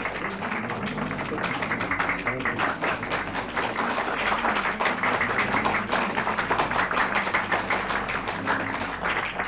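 Rapid, uneven tapping or clapping: many sharp clicks a second over faint music.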